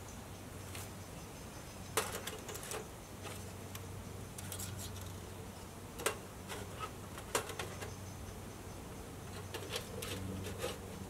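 Thin titanium panels of a Winnerwell woodburner stove clinking and tapping as the stove is taken apart and packed flat: a few sharp metallic clicks, the loudest about two seconds in, with lighter ticks between, over a steady low hum.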